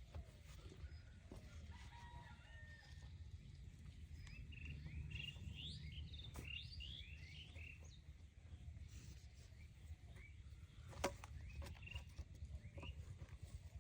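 Chickens chirping faintly: a quick run of short rising chirps, then a few more near the end, over a steady low rumble. A single sharp knock sounds about eleven seconds in.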